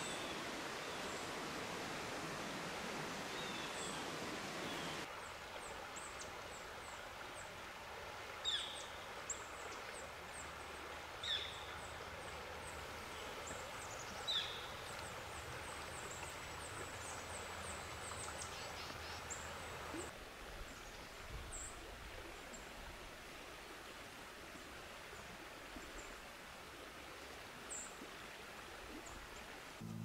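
Outdoor ambience: a steady rushing hiss for about the first five seconds, then small birds chirping and calling over a quieter background, with a few louder calls between about eight and fifteen seconds in. The background changes abruptly about five and twenty seconds in.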